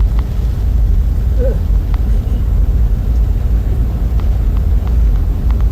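Car driving, a loud steady low rumble of engine and road noise heard from inside the cabin.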